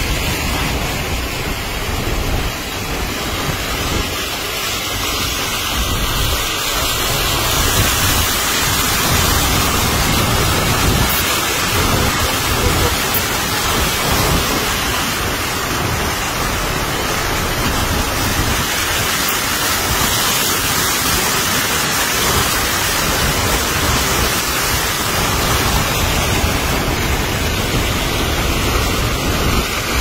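Steady rushing and splashing of floodwater thrown up by a car's tyres as it drives through a flooded road.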